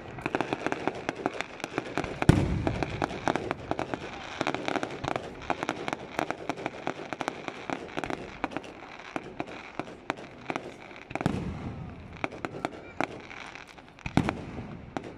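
Aerial fireworks display: rapid, dense crackling of bursting stars, with heavy booms from shell bursts about two seconds in, around eleven seconds and just before the end.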